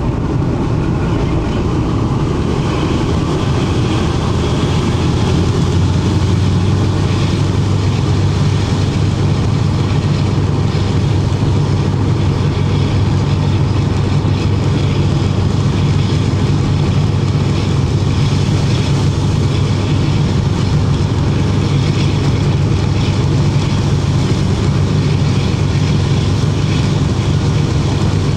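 Cab interior of a Class 52 'Western' diesel-hydraulic locomotive on the move: its twin Maybach V12 diesel engines running with a steady low drone, along with the running noise of the train on the track. The low hum grows a little stronger about a third of the way in.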